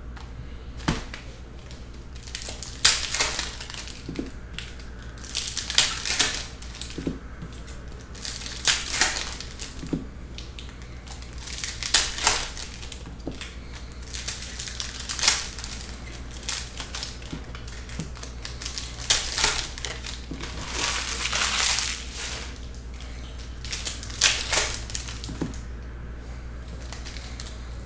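Hands crinkling foil trading-card pack wrappers and shuffling stiff cards against one another, in repeated bursts of rustling every few seconds.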